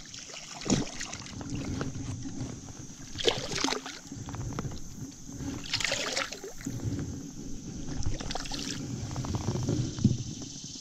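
Creek water sloshing and splashing, with a louder splash every two to three seconds over a steady low wash of water.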